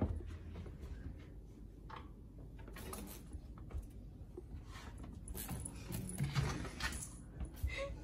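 Faint scattered thumps, scrapes and rustles of a cat dashing about on a wooden floor under a table, mixed with handling noise from the moving phone camera, over a low rumble; the bursts come thicker in the second half.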